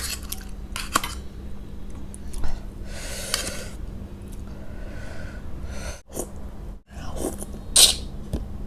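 Close-miked eating sounds from a person: a few sharp mouth clicks, a long noisy breath or sniff about three seconds in, and another sharp burst near the end, over a steady faint hum.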